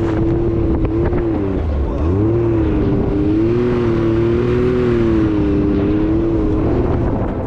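Can-Am X3 side-by-side's turbocharged three-cylinder engine running under load, with tire and track noise underneath. Its pitch drops briefly about a second and a half in and climbs back as the throttle is eased off and reapplied.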